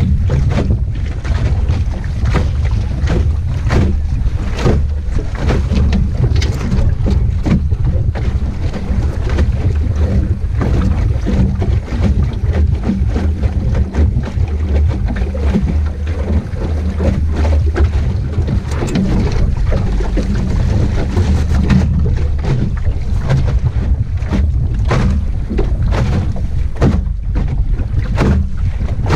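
Wind rumbling loudly on the microphone aboard an Optimist sailing dinghy under way, with many short slaps of water against the hull.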